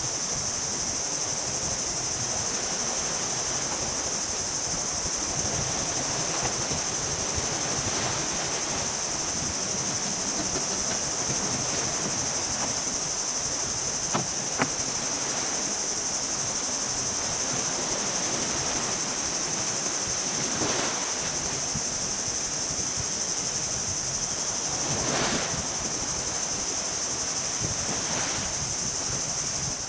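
Steady high-pitched insect drone, crickets or cicadas, over a continuous wash of sea surf. A couple of sharp clicks come about halfway through.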